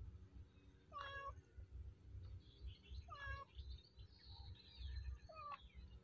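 Faint, short animal calls, each falling in pitch, repeated about every two seconds; PANN files them as a cat meowing.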